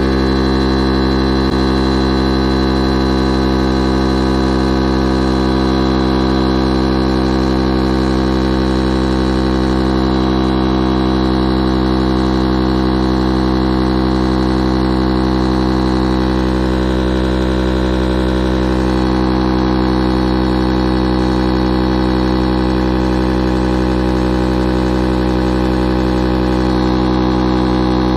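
Electric high-pressure air pump running steadily as it inflates an inflatable boat through a hose, a constant motor drone with many even tones.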